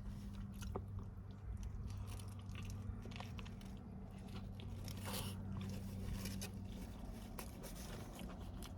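Close-up chewing of a mouthful of cheeseburger, with wet mouth sounds and small crunches, over a low steady hum.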